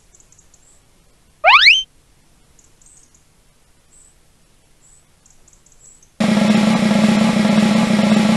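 A short rising whistle-like sound effect about a second and a half in, then from about six seconds in a loud, steady snare drum roll building suspense.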